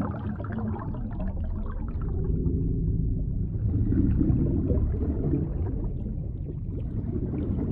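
Underwater ambience sound design: a deep, steady rumble with bubbling, gurgling water, swelling a little around the middle.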